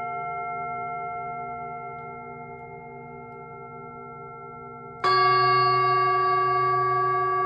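Singing bowl ringing and slowly fading with a pulsing hum, then struck again about five seconds in and ringing out loudly with several high tones.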